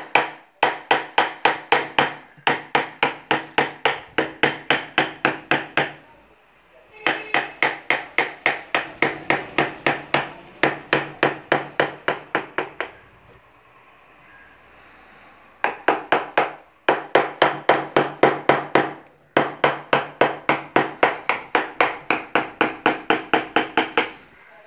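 Rapid, even blows of a hammer on a wood-carving chisel, cutting into a wooden board at about four strikes a second, each with a short ringing note. The strikes come in runs of several seconds, with a few short pauses.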